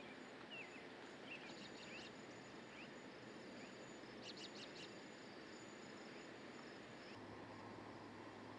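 Faint outdoor ambience: a steady low hiss with scattered small bird chirps, including a quick run of four or five chirps about four seconds in. A faint steady hum comes in near the end.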